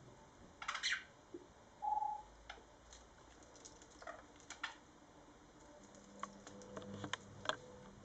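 Budgies picking and chewing at a woven straw toy: scattered soft clicks and rustles of beaks on straw, with a few short chirps, one of them a brief single note about two seconds in.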